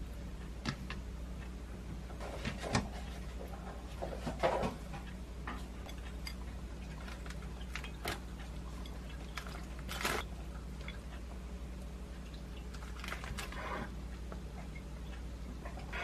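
Soft, scattered taps and short rustles of food being handled on a plate: sausage slices set down and shredded cheese shaken from a plastic bag. A low steady hum runs underneath.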